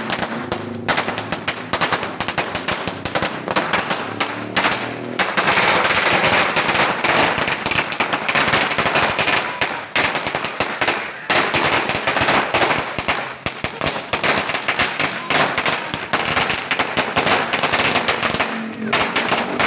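Suzuki Raider 150's single-cylinder four-stroke engine revving with its exhaust backfiring in rapid, machine-gun-like strings of pops. The pops grow louder and almost continuous from about five seconds in.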